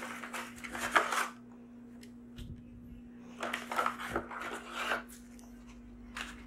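Crinkling and light clinks of a disposable aluminium foil baking pan being handled as lasagna sheets are laid in. It comes in two bursts, one lasting about a second at the start and another from about three and a half to five seconds in, with a soft low thump between them.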